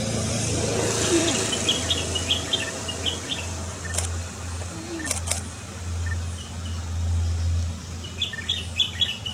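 White-eye (pleci) chirping: a quick series of short high calls about a second in and again near the end. A steady low hum runs underneath, with a few sharp clicks in the middle.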